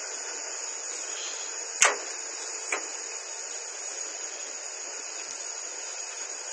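Steady hiss with a thin high whine, broken about two seconds in by a sharp metal click and a smaller one shortly after: the latch and door of a steel electrical control cabinet being opened.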